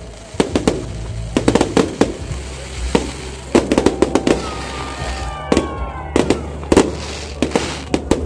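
Fireworks going off: rapid bangs and crackles in clusters, with a few whistles falling in pitch about five seconds in.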